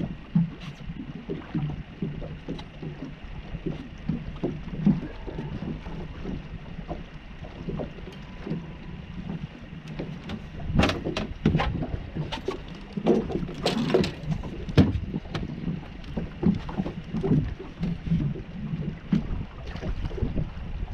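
Water lapping and knocking against a small fibreglass boat's hull, with wind on the microphone; a run of sharper knocks and splashy clatter comes about ten to fifteen seconds in.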